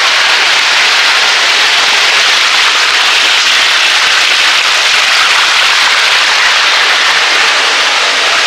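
Waterfall water cascading into a rock pool, a loud, steady rush.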